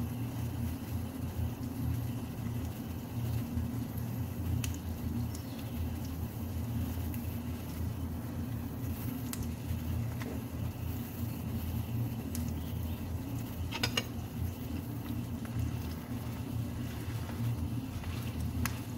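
Steady low hum with a few light clicks and clinks of a metal spoon against a frying pan, a small cluster of them about two-thirds through.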